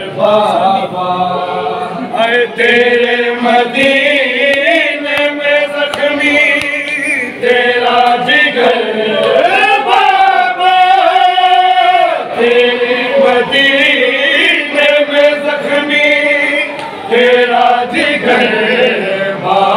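A group of men chanting a noha, a Shia mourning lament, together in unison, with long wavering held notes and brief breaks between lines.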